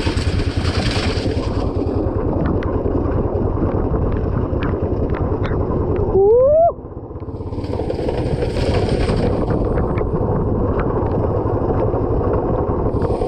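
Motorcycle engine running at low speed on a muddy off-road trail, with scattered small clicks and rattles. About six seconds in comes a brief rising whine, the loudest sound. After it the engine eases off and then picks up again.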